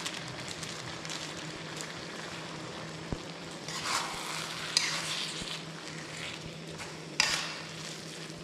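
Shredded potato, carrot and meat sizzling as they are stir-fried in a pot, stirred with a few short scrapes against the pot.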